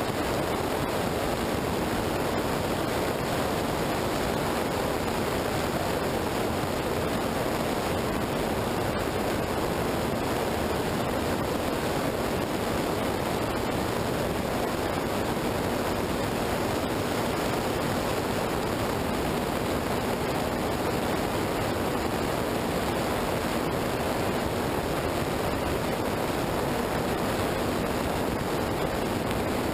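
Steady rush of wind and tyres running through water on a wet road, heard on an action camera's microphone mounted on the outside of a moving vehicle. The noise stays even, with no change in pitch or level.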